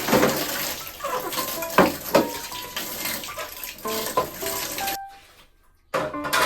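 Water running from a tap into a sink, with clinks of dishes being rinsed. The water stops about five seconds in and starts again about a second later.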